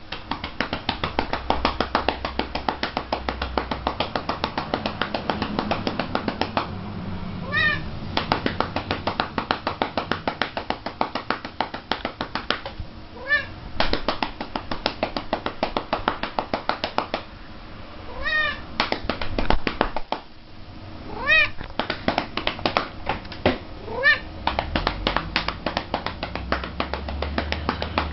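Rapid open-hand pats on a calico cat's rump, several a second and kept up almost without a break, while the cat gives a short meow every few seconds.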